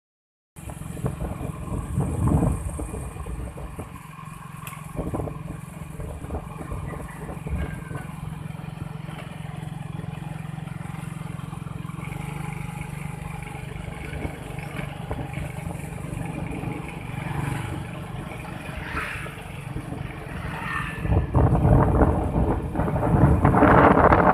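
Gusty wind rumbling on the microphone over a steady low hum. The gusts grow louder near the end.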